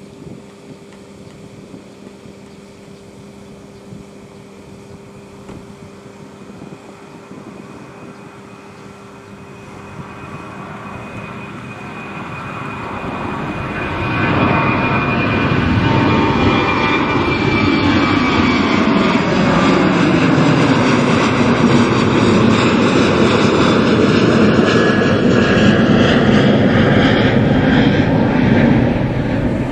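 Boeing 737-800 jet airliner's CFM56-7B turbofan engines at takeoff power. Faint at first during the takeoff roll, the sound grows from about ten seconds in and becomes a loud jet roar from about halfway as the plane climbs out overhead, with a whine that falls in pitch as it passes and recedes.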